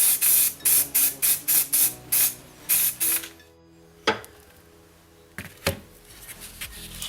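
Short hissing spray bursts, about two a second, stopping about three seconds in; two sharp clicks follow, under quiet background music.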